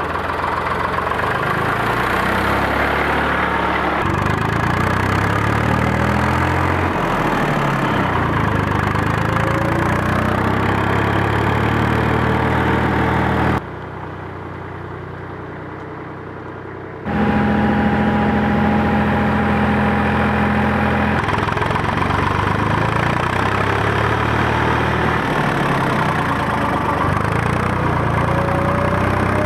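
Air-cooled diesel engines of vintage Eicher tractors running, engine speed rising and falling now and then. About halfway through the sound drops sharply for roughly three seconds, then comes back as a steadier run.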